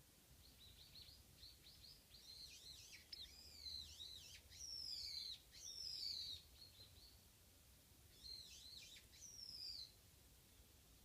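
Japanese white-eye (mejiro) singing faintly: a long, fast warble of high twittering notes and swooping whistles, then a shorter second phrase about eight seconds in.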